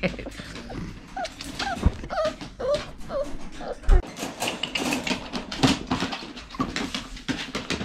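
Red Cavapoo puppy whimpering in short, high, rising-and-falling squeaks, mostly in the first half. Handling clicks and two dull thumps, about two and four seconds in, come through alongside.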